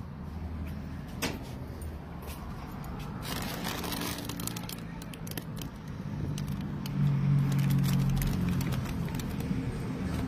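Plastic snack bags and foil tinsel garland crinkling and rustling as a hand reaches in among them, with scattered clicks, over a steady low hum. The rustling is loudest about three to four seconds in and grows louder again in the second half.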